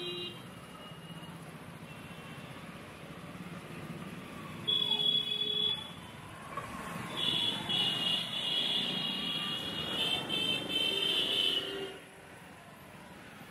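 Street traffic noise with high-pitched vehicle horns sounding: a short blast about five seconds in, then a longer stretch of honking from about seven to twelve seconds in.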